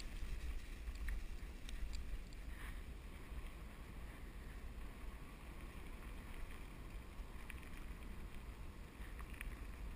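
Wind rushing over the microphone of a moving camera, with a low rumble from wheels rolling over grass and a dirt track, a little louder in the first two seconds; a few faint ticks.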